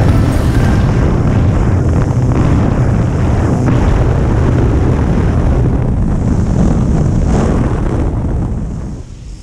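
Loud rush of wind buffeting the microphone at the open door of a small propeller plane in flight, with the engine and propeller droning underneath. It eases off near the end.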